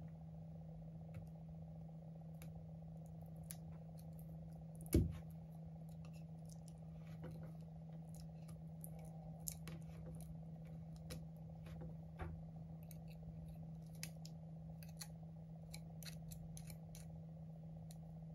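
Faint, scattered clicks and light taps of a small hand tool against the iPhone 11 as its battery adhesive strips are worked loose, with one louder knock about five seconds in, over a steady low hum.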